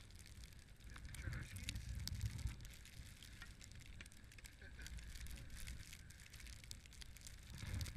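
Faint low rumble that swells about a second in and again near the end, with scattered crackles and clicks: wind buffeting and fabric rustle on a wearable camera's microphone on a moving chairlift.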